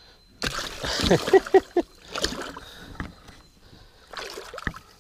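Water splashing as a musky thrashes in a landing net against the side of a small boat. The splashing comes in a loud burst about half a second in, then smaller ones, and a last burst near the end that closes with a sharp knock.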